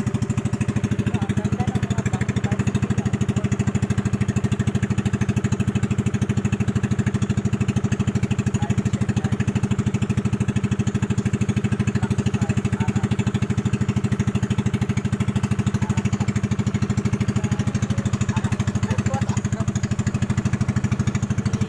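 Engine of a motorized outrigger boat running steadily at cruising speed, with a fast, even chugging beat that holds throughout.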